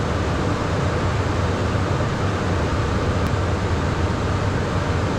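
Steady rushing cabin noise inside a Beechcraft Premier 1A twin-turbofan business jet in flight, with airflow and engine noise and a low hum underneath.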